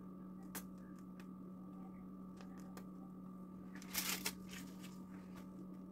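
Low, steady background hum with scattered faint clicks, and a short rustle about four seconds in as a hand moves close to the microphone.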